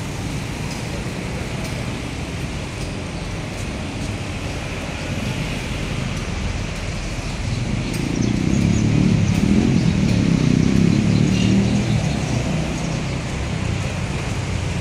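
Street traffic rumble, with a motor vehicle passing close by: the sound swells about eight seconds in and eases off again a few seconds later.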